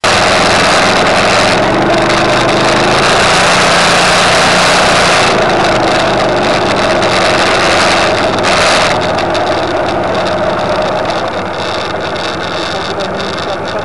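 A vehicle's engine running steadily under a loud rushing noise while riding along a gravel track. The rushing eases after about nine seconds as the vehicle slows, leaving the engine running at a steady low pitch.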